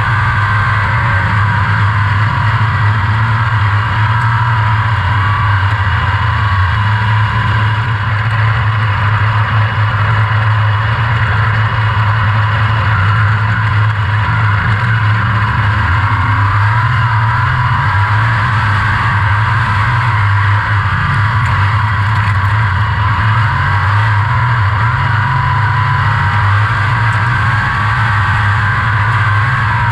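360 sprint car's V8 engine running hard at racing speed, heard from the cockpit: a loud, steady engine drone with little change in pitch.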